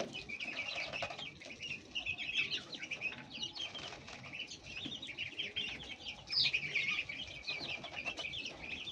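A brood of young chicks and ducklings peeping continuously: a dense chorus of short, high chirps.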